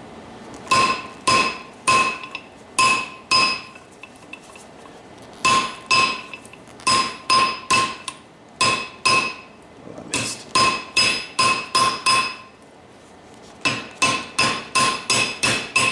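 Hammer blows on hot steel over an anvil, each strike ringing, as the bar is cut off to length. The blows come in bursts of several with short pauses, and quicken near the end.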